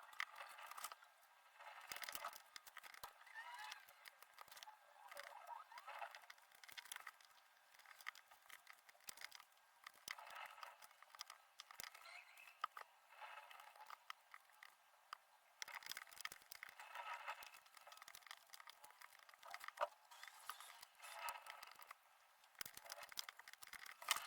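Faint, rapid clicking and crinkling of jigsaw puzzle pieces being handled, sped up.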